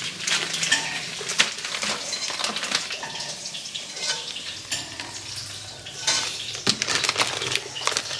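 Plastic bags of frozen catfish rustling and crinkling as they are handled, with small clicks and kitchen clatter; the rustling is louder about six seconds in.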